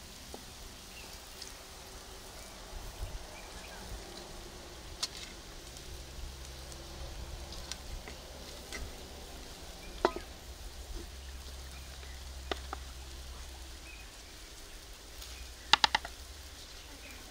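Wooden spoon scooping slap pap out of a cast-iron pot into a wooden bowl: scattered soft scrapes and light knocks, a sharper knock about ten seconds in, and a quick run of three or four taps near the end, over a faint low rumble.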